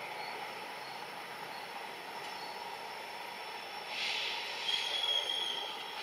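A WDP4B diesel locomotive and its passenger train approach with a steady running noise. About four seconds in there is a brief hiss, then a short high-pitched squeal from the train for under a second.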